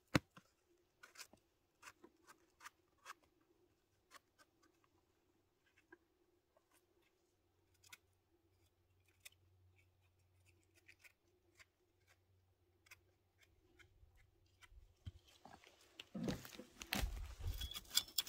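Dry forest-floor litter crackling and snapping: scattered sharp clicks through most of it, then a louder, denser run of crunching and rustling near the end.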